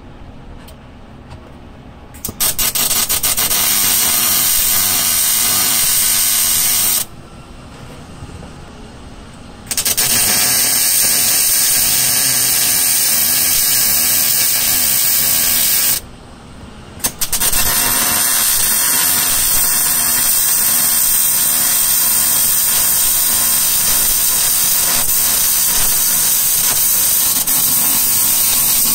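Wire-feed (MIG) welder arcing in three long runs, about five, six and twelve seconds, each a steady crackling hiss, while steel reinforcement plates are welded to a car body's sheet metal. A lower background hum fills the two short pauses between runs.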